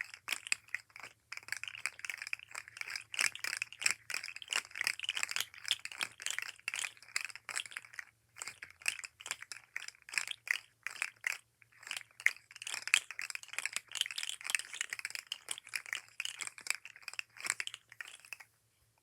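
Articulated plastic fidget slug toy being flexed and wiggled: its segments click and clatter against each other in rapid, irregular runs, with a few short pauses, and stop shortly before the end.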